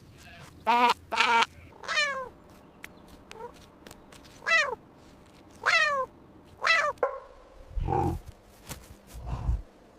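Domestic cat meowing: about six short calls, most sliding down in pitch. Near the end come two deep, low sounds.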